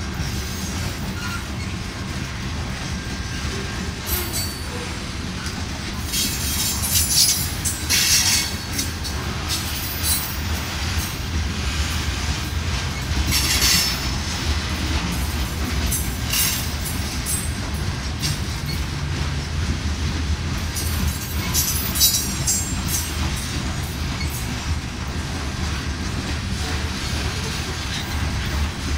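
Empty covered hopper cars of a freight grain train rolling slowly around a curve. The wheels give a steady low rumble on the rails, with short bursts of high wheel squeal several times, loudest about seven to eight seconds in, at about thirteen seconds and at about twenty-two seconds.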